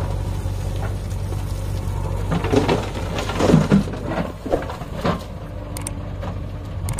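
Diesel engines of a tractor and a JCB 3DX backhoe loader running steadily at low revs, with a burst of irregular scraping and knocking from about two to five seconds in as the backhoe works the soil.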